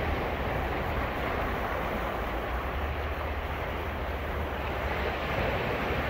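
Ocean surf washing on a beach, a steady wash of noise, with wind rumbling on the microphone.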